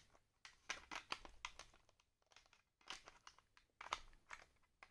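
Faint, scattered clicks and crinkling as small screwdriver accessories are handled and pressed into a storage box.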